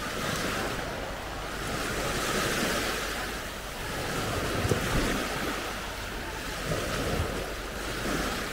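Small Baltic Sea waves washing onto a sandy beach in a steady, slowly swelling surf, with wind rumbling on the microphone. Two brief thumps about halfway through.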